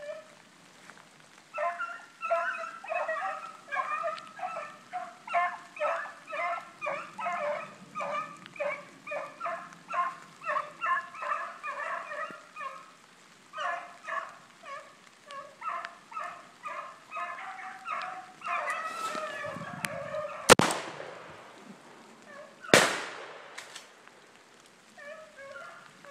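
Hunting hounds baying on a chase, a steady run of barks about two a second, ending in a long drawn-out bawl. Then two loud gunshots about two seconds apart ring out through the woods.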